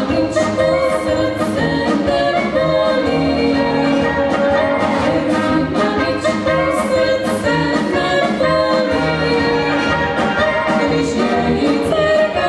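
Brass band music with tuba, trumpets, trombones and drum kit playing a steady beat, while a small vocal group of men and women sings the melody together.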